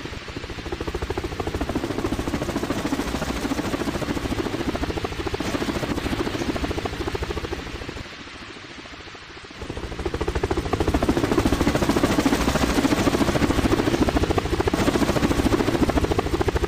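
Helicopter sound effect: rotor blades chopping fast and steadily. The sound drops quieter for about a second and a half past the middle, then comes back up.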